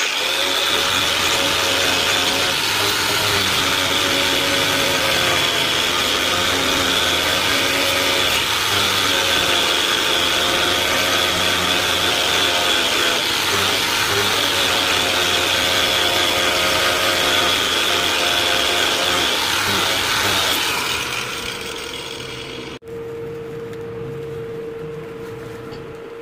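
Angle grinder with an abrasive disc starting up sharply and running steadily with a high whine while grinding a metal part of a bench vise. About twenty seconds in it winds down over a couple of seconds, leaving a quieter steady hum after a brief dropout.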